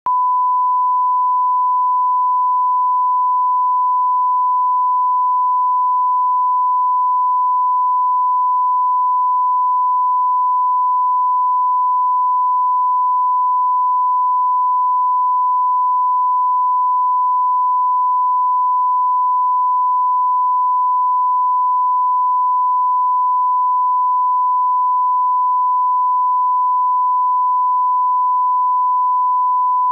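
Steady 1 kHz reference tone, the line-up tone that goes with colour bars: one unbroken pure beep at a single pitch, used to set audio levels.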